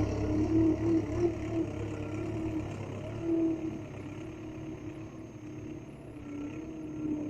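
Engine of a mini bulldozer running, with a whine that wavers up and down in pitch over a low rumble; the rumble eases off about two and a half seconds in.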